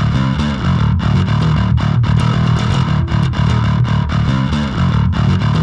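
Loud outro music with a steady beat.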